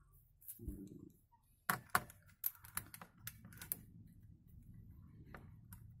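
Faint handling noise from a mechanical keyboard being taken apart with its keycaps removed: a soft thud, then a scatter of sharp plastic clicks and taps between about two and four seconds in.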